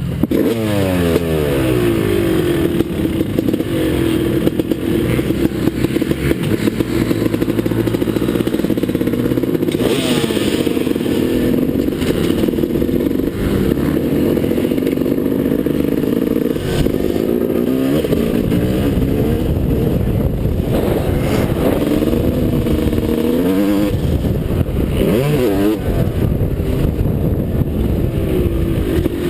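Suzuki RM250 two-stroke motocross engine ridden hard, revving up in repeated rising sweeps as it shifts through the gears, with brief drops in revs around the middle and near the end before it picks up again.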